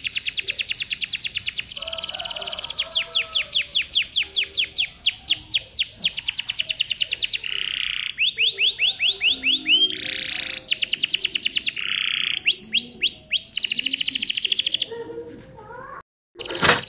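Domestic canary in full song: long rolls of rapid repeated high notes, switching to a new trill every second or two. The song fades shortly before the end, breaks off in a brief silence, and a click follows.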